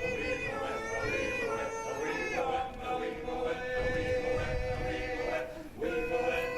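Barbershop quartet-style male ensemble singing a cappella in close four-part harmony, the voices holding chords together, with a brief breath break about five and a half seconds in.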